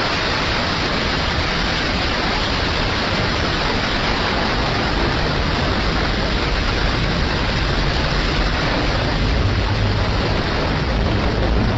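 Loud, steady rushing noise like heavy static, with a deep rumble underneath and no tone or rhythm: a distorted scary sound effect.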